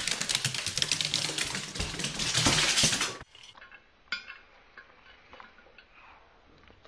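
Dishes and cutlery clattering rapidly while the dog's dinner is being prepared, stopping abruptly about three seconds in; after that only a few faint, scattered clicks.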